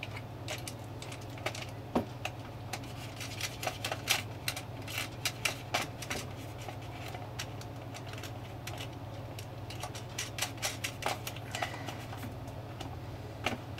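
Light, scattered clicks and taps as a nut is threaded by hand onto the stem of a battery quartz clock motor and the clock is handled. The clicks come in a run for a few seconds, pause, and pick up again briefly later, over a steady low hum.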